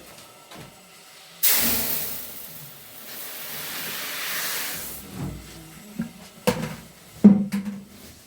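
A sudden loud hissing rush starts about a second and a half in and dies away over some three and a half seconds, followed by a few sharp knocks near the end.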